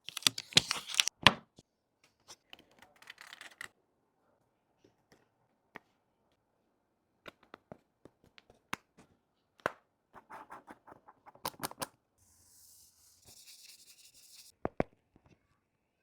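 Hand tools and material worked on a smartphone during a back-glass repair: a loud tearing scrape in the first second or so, scattered sharp clicks and taps, a second spell of scraping about ten seconds in, and a high steady hiss for a couple of seconds near the end.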